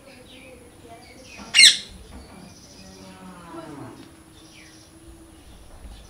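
A parrot gives one loud, harsh screech about a second and a half in, over faint high chirping of small birds.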